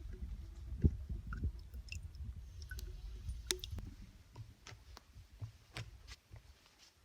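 Dry twigs and forest litter snapping and crackling underfoot and in the hands while firewood is gathered, as scattered sharp cracks, with a low rumble that fades about four seconds in.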